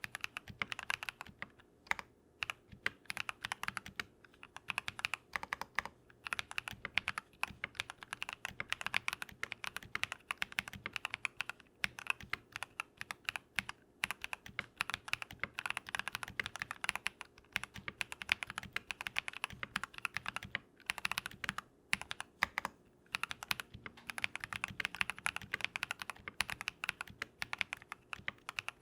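Continuous typing on a Keychron V1 mechanical keyboard with lubed Drop + Invyr Holy Panda tactile switches: fast runs of keystroke clacks with brief pauses between bursts.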